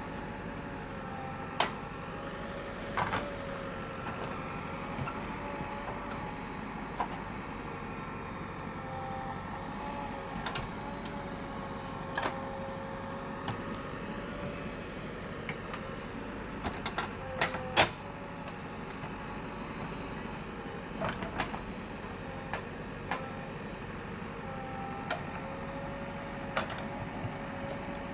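Backhoe loader running steadily, its whine rising and falling a little, with scattered sharp knocks and clanks from the working machine.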